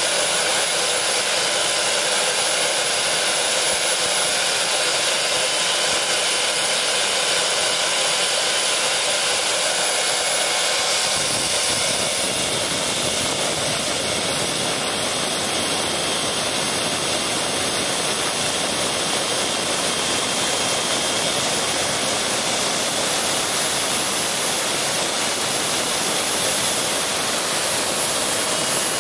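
Tiernay TT10 gas turbine engine running steadily: a loud, even rush of noise with a high whine over it. A deeper rumble fills in about eleven seconds in.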